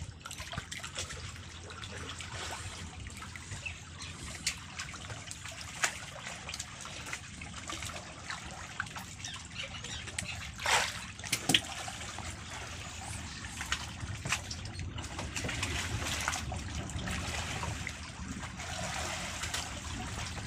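Sea water lapping and splashing against the side of a wooden outrigger fishing boat, with scattered clicks and a couple of sharper knocks about halfway through.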